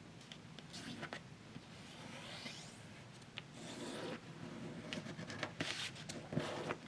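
A sheet of paper being handled and folded by hand: faint rustling and rubbing strokes against the paper, more frequent in the second half.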